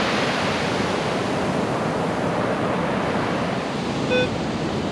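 Steady wash of ocean surf breaking on the beach. About four seconds in, a metal detector gives one short electronic beep, its target signal as the coil passes over buried metal.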